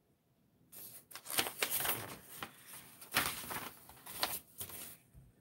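Paper rustling and crinkling as sheets are handled, in an irregular run of short crackles. It starts about a second in and stops shortly before the end.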